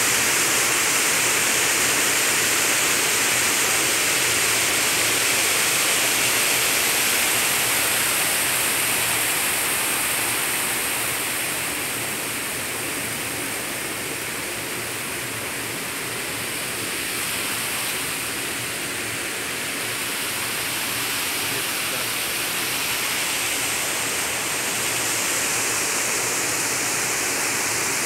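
Steady rushing hiss like running water, easing off a little midway and building back, with a thin high steady whine above it.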